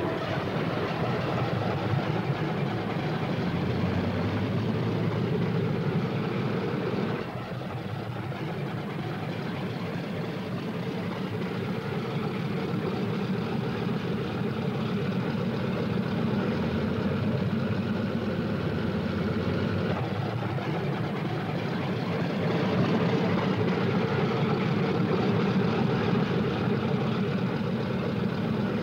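Twin Allison V-12 piston engines of a Lockheed P-38 Lightning running on the ground at idle and taxi power, a steady engine drone. It drops in level about seven seconds in and grows louder again past twenty seconds.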